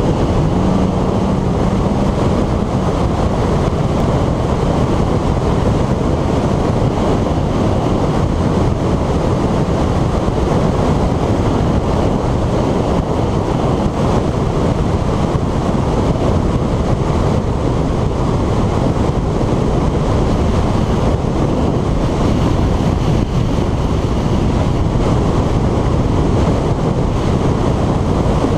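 Steady rush of wind and road noise from a 2015 Corvette Z06 driving at speed, with a steady low hum for the first few seconds.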